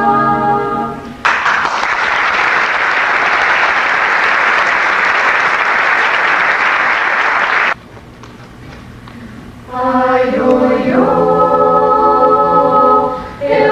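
A choir ends a sung chord about a second in, and an audience applauds for about six seconds until the applause cuts off suddenly. After a short quiet gap the choir starts singing the next song.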